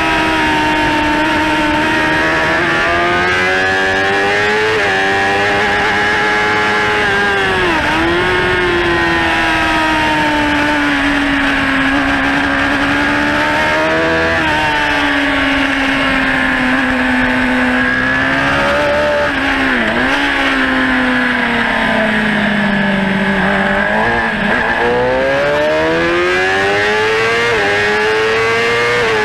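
Racing motorcycle engine at high revs, heard onboard at speed: the note holds high through long stretches, dips sharply three times as the rider brakes and shifts down, and climbs back up each time.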